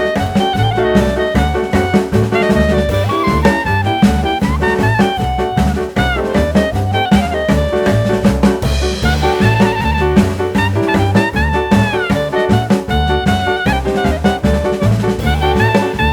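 Upbeat swing-jazz background music with brass and a steady drum beat.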